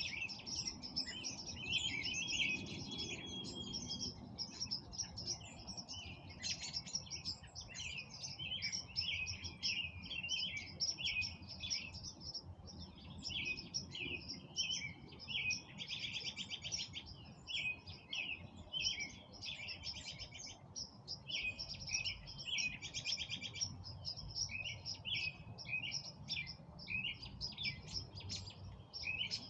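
Several songbirds chirping and singing at once in a dense, unbroken chorus of short calls and phrases, with a couple of rapid trills about halfway through.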